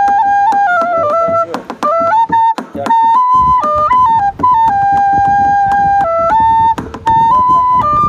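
Background music: a flute playing a slow melody of long held notes that step up and down in pitch, with a few short gaps.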